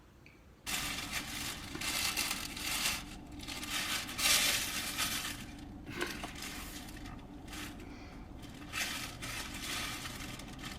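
Crinkling and rustling, as of handled packaging, in uneven bursts with short pauses, starting just under a second in.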